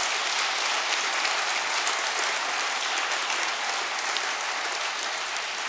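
A large audience applauding: dense, steady clapping that eases off a little near the end.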